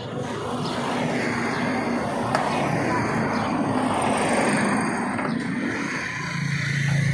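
A motor vehicle's engine and road noise swelling and easing, followed by a steady low engine hum setting in about six seconds in.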